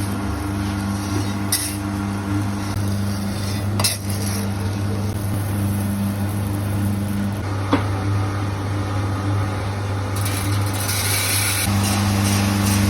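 Electric motor of a homemade coffee roasting machine humming steadily, with a few sharp clicks and a rise in hiss near the end.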